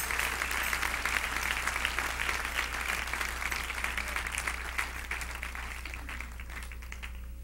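Church congregation applauding, the clapping dying away near the end.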